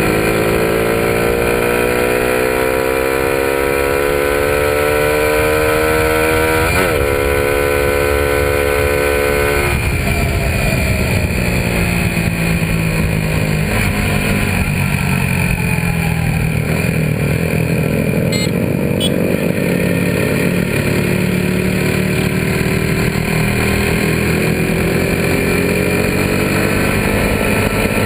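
Suzuki Raider 150 motorcycle's single-cylinder four-stroke engine under way, its note climbing steadily in pitch for about the first ten seconds, then dropping and running on more evenly, with wind and road noise throughout.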